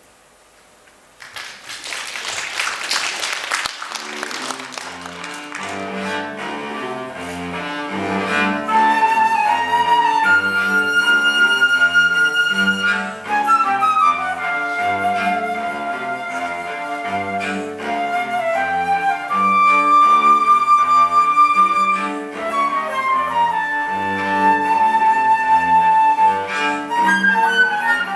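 Flute and cello playing a chamber duet: the cello plays a steady, rhythmic low accompaniment while the flute holds long high notes, some sliding between pitches. About a second in, the music enters with a loud rush of breathy noise lasting a few seconds.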